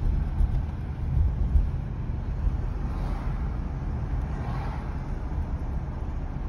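Steady low road and engine rumble of a car driving, heard from inside the cabin.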